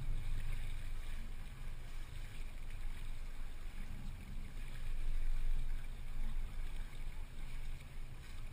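Steady rushing, rumbling noise of a sailboat under way, wind and water around the hull, swelling a little about five seconds in.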